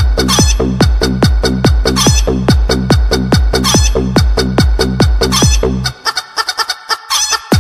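Electronic dance music with a fast, pounding kick-drum beat and clucking chicken sounds mixed in. The deep beat drops out about six seconds in and comes back hard at the very end.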